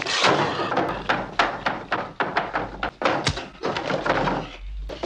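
Horror-film sound effects: an irregular run of short, harsh squeal-like animal noises and thuds.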